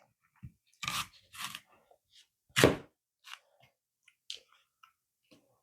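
Crisp crunching of green apple: a few separate crunches, the loudest nearly three seconds in, followed by a few light clicks.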